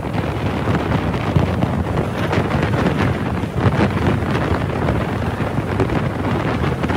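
Wind buffeting the microphone: a steady, gusty rushing noise.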